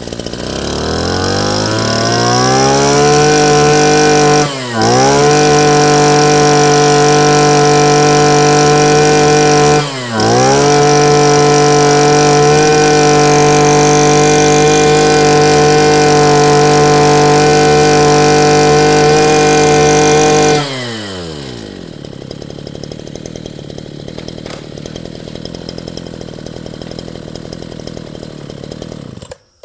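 Robin NB281 28cc two-stroke brush cutter engine revving up to high speed and held there at full throttle, with two brief dips when the throttle is let off. About 21 seconds in it falls back to idle, and it stops near the end.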